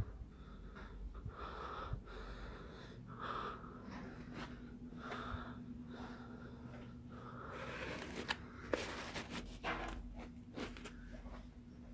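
A person breathing heavily and unevenly close to the microphone, a soft puff every second or so. A few sharp clicks and knocks come in a cluster about two-thirds of the way in, and a faint low hum joins partway through.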